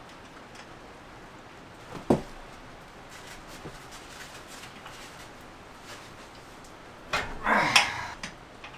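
Hand work on a fat bike's rear wheel: faint clicks and rattles of the parts, and one sharp knock about two seconds in. Near the end comes a loud strained grunt of effort, the loudest sound here.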